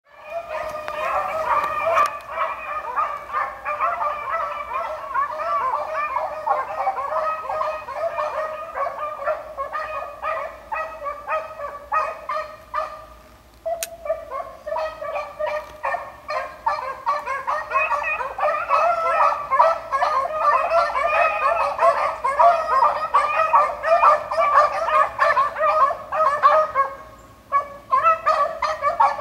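A pack of beagles baying in full cry, many voices overlapping, as they run a rabbit's scent trail; the cry drops briefly about halfway through, then picks up again.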